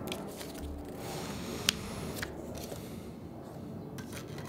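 Pages of a small paperback guidebook being leafed through and a card deck handled: soft paper rustling with a few small sharp clicks, the sharpest a little under two seconds in.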